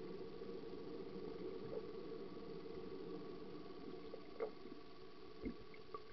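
Muffled underwater pool ambience: a faint steady low hum, with a couple of faint knocks about four and a half and five and a half seconds in.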